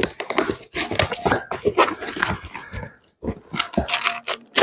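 Cardboard box being slit open with a utility knife and its flaps pulled apart: irregular scraping, tearing and rustling of cardboard, with a short pause about three seconds in.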